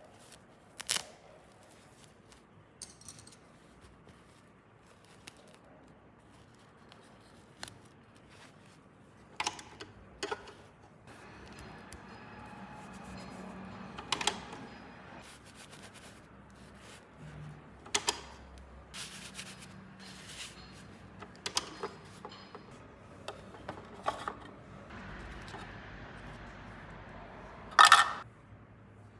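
Small plastic toy dollhouse pieces being handled and set in place: scattered clicks and taps with a soft rustle between them, the sharpest tap near the end.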